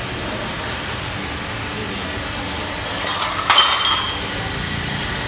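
Micromatic cylindrical grinder running with a steady mechanical hum and hiss. About three seconds in there is a brief, loud, harsh metallic burst that leaves high ringing tones for a moment.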